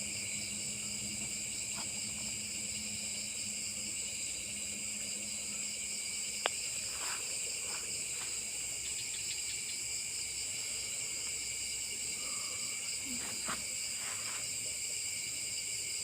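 Night insect chorus: crickets and other insects trilling steadily and densely in several high-pitched layers. A single sharp click comes about six and a half seconds in, with a few faint short knocks or rustles later on.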